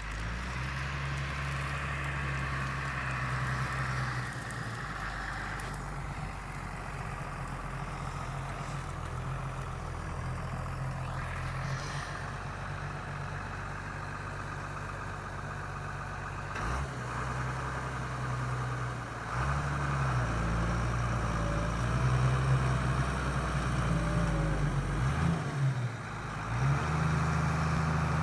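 Deutz-Fahr Agrotron 6.45 tractor engine working under load while pulling a plough, its note shifting several times in the second half as engine speed and load change.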